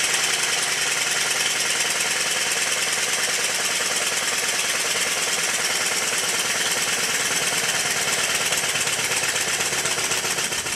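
Stuart triple expansion model steam engine running fast and steadily, a rapid even clatter of its moving parts with a hiss of exhaust. It is a newly built engine being run in.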